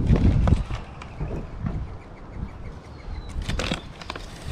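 Brown paper bag rustling and crinkling as it is handled and opened by hand, in scattered short crackles with a cluster about three and a half seconds in. A low rumble at the very start.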